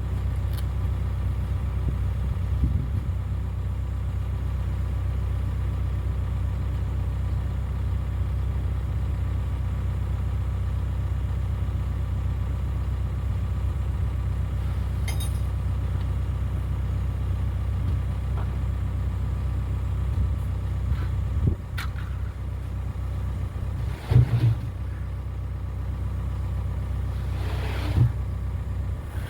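Excavator's diesel engine running steadily, with a few knocks and clunks in the last third.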